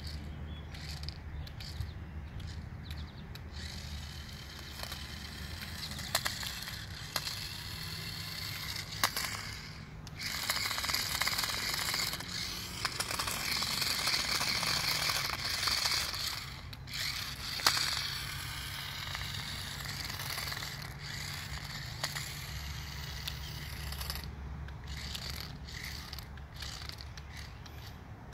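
Cheap toy RC car's small electric motors and gearboxes whirring as it drives on asphalt, louder for several seconds in the middle as it passes close by.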